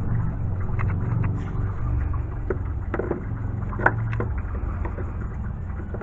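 Hands working the upper radiator hose and its clamp free, with a few light clicks and knocks a few seconds in, over a steady low hum.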